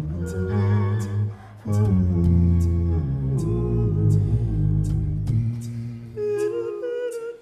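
Layered a cappella vocal looping: low hummed bass notes and wordless sung harmonies over a steady beat of mouth-made hi-hat clicks, about two or three a second. The low bass drops out after about five seconds and a higher held sung note comes in near the end.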